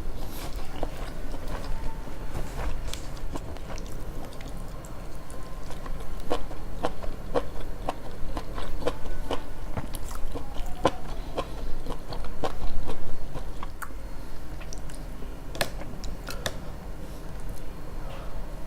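Close-miked chewing of sushi, with wet mouth clicks and smacks at irregular intervals.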